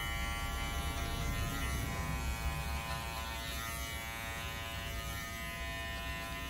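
Electric hair clipper running with a steady buzzing hum while cutting hair over a comb.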